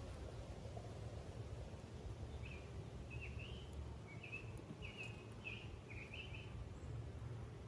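A bird sings a quick string of short chirping notes for a few seconds in the middle, over a steady low background rumble.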